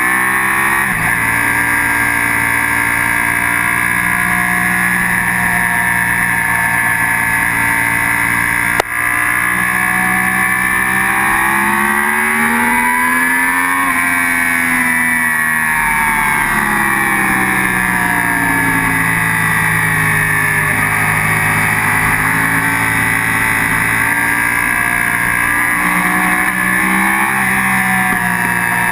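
Sport motorcycle engine running hard at speed, with heavy wind rush over the bike. Its pitch climbs to a peak about halfway through, falls away for several seconds, then climbs again near the end. There is a single sharp click about nine seconds in.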